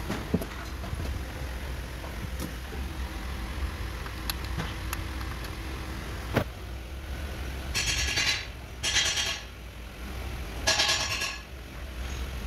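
Garage noise: a steady low hum with a few sharp metal clicks, then three short hissing bursts near the end.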